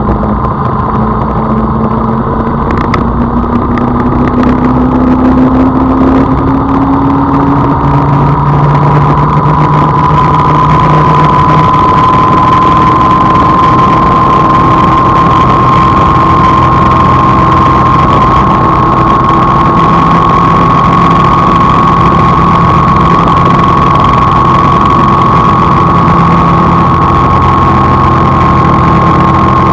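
A vehicle's engine running steadily while driving, with road noise and a whine whose pitch slowly rises.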